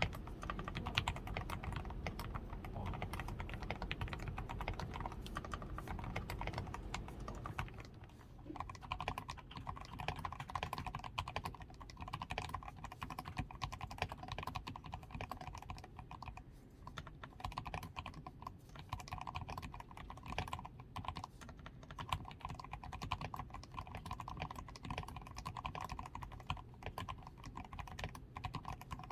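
Continuous typing on a DAREU A87 Pro mechanical keyboard: a dense, irregular stream of keystrokes. The switches are fully lubed with Krytox 105 and the stabilizers lubed, the PCB is tape-modded, Poron foam is added under the switches, and the keycaps are XDA profile.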